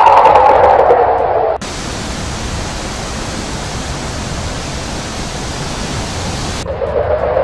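Background music, cut off abruptly about a second and a half in by a steady, even hiss of noise. The hiss lasts about five seconds and stops just as suddenly near the end, when the music comes back.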